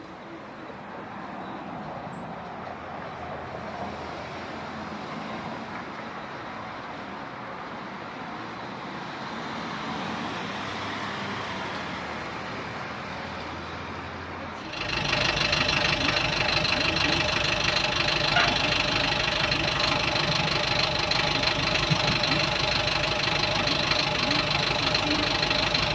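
An engine running. For the first half there is a rushing noise that slowly grows louder; about fifteen seconds in it suddenly becomes louder and steady, with a hum of several even tones.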